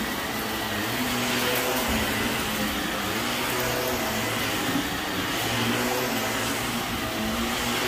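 Shark upright vacuum cleaner running steadily on a shag rug, its motor pitch wavering slightly up and down as it is pushed back and forth.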